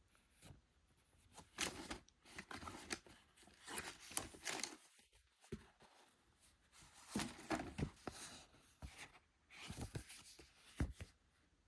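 Paper and card handled and turned over, rustling and crinkling in short, irregular bursts with brief quiet gaps between.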